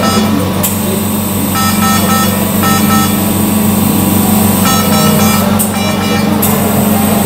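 DHAMAN-III ventilator sounding its alarm: groups of short, repeated high beeps that pause twice, over a steady low hum. The alarm is for a low breath rate.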